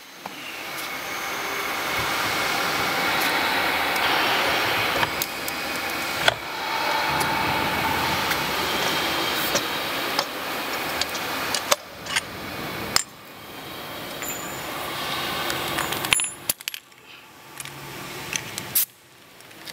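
Metal clinks and knocks from handling a freshly removed electric-bike rear wheel and its axle parts, over steady workshop background noise that breaks off abruptly several times.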